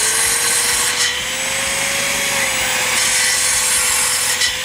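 Angle grinder running free at full speed with a steady high whine, while a circular saw cuts through wood in two bursts, one at the start and another about three seconds in. The tools run without bogging down on the Ford F-150 Lightning's bed-outlet power.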